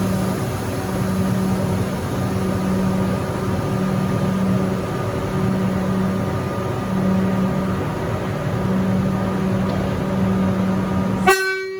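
Metro Comeng electric train's equipment humming steadily at the platform, with a low hum that swells and dips about once a second. The sound ends with a click and cuts off suddenly near the end.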